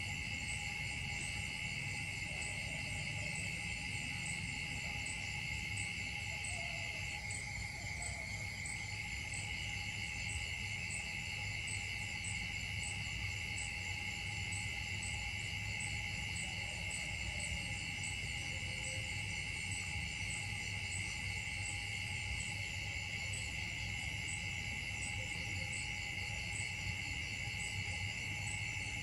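Steady insect chorus: several high buzzing tones held without a break, the highest of them pulsing evenly, over a low rumble.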